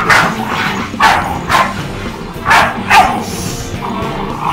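Staffordshire bull terrier puppy barking in play-fight, a run of short, sharp yappy barks, about six in four seconds.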